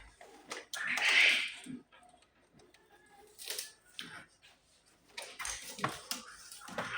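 Scattered clicks and light knocks of hands and tools at work, with a short rustling hiss about a second in and again near the end.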